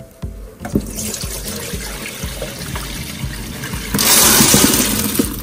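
Water splashing into a stainless steel sink and colander. About four seconds in it turns into a much louder rush as soaked red beans and their soaking water are poured from a plastic tub into the metal colander.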